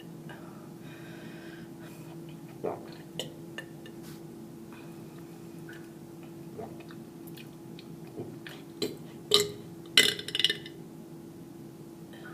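A girl burping: a few small clicks and short burps, then the loudest burps come in a quick cluster about nine and a half to ten and a half seconds in. A steady low hum runs underneath.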